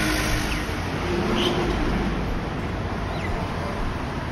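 Steady outdoor street noise with a constant low rumble, typical of passing traffic.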